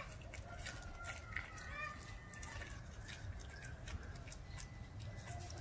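A German shepherd puppy chewing a raw chicken quarter, its teeth working on the bone in irregular crunching clicks.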